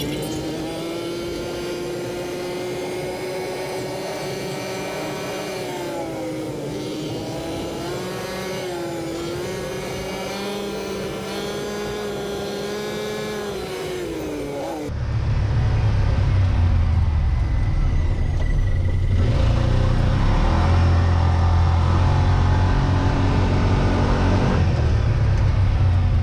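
Yamaha Wolverine X2 side-by-side driving along a trail, heard from inside the cab: a steady engine note that sags and picks up again about six to nine seconds in as the speed changes. About fifteen seconds in the sound changes abruptly to a louder, deep rumble of engine and travel noise.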